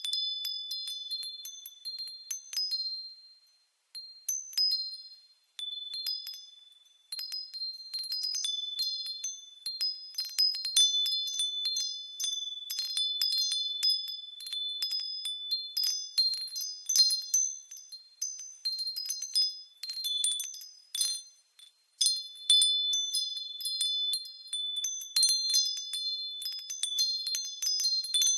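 Wind chimes tinkling at an irregular pace, their high, clear notes struck one after another and left to ring, with short lulls about four, six and twenty-one seconds in.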